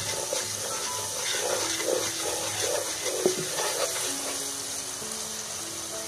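Onion, garlic and green-chilli masala sizzling in hot oil in a nonstick pan, stirred with a wooden spoon: a run of quick scraping strokes in the middle and a sharp knock of the spoon about three seconds in. Background music with held notes plays over the frying.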